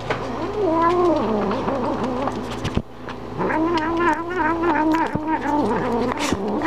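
Domestic cat giving a low, wavering warning yowl-growl at her food bowl in two long drawn-out calls, the second starting about three and a half seconds in. This is a guarding sound, warning the dogs to stay away while she eats. Short clicks of her eating dry food come between the calls.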